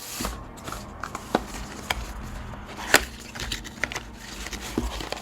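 Packaging being handled and opened: scattered clicks and taps over a low rustle, with one sharper click about three seconds in.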